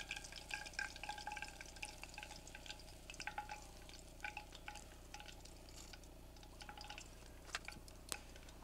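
Hot frying grease crackling quietly, with small scattered pops.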